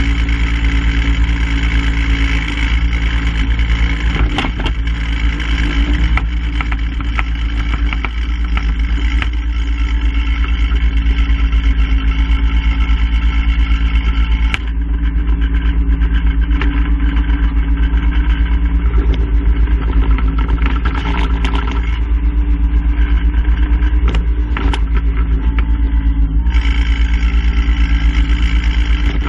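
An engine running steadily at a constant speed, with a few sharp knocks over it.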